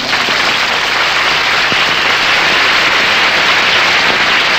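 Audience applauding right after the song's final note: dense, steady clapping.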